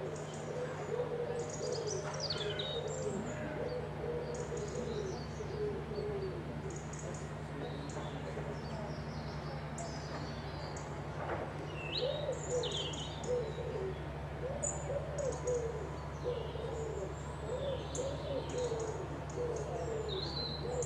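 Songbirds chirping and whistling in short high phrases throughout, with lower arching calls repeating in between, over a steady low hum.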